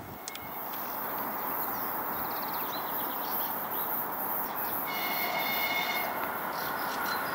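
ES1 "Lastochka" electric multiple unit approaching, a steady running rumble that swells in the first second and keeps slowly growing louder. About five seconds in, a high-pitched tone sounds for just over a second.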